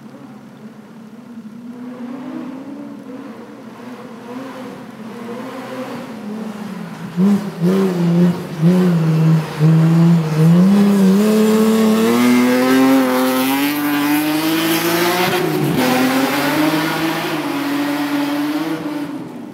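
Rally car at speed on a snowy forest stage: its engine grows louder as it approaches, revving up and down in quick steps, then climbing steadily under acceleration. About three-quarters of the way through it passes close by with a drop in pitch, and its engine note fades as it pulls away.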